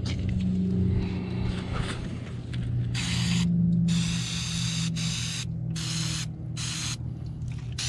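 Aerosol brake cleaner sprayed onto a Yamaha PW50's engine in a series of short hissing bursts, starting about three seconds in, over a steady low hum.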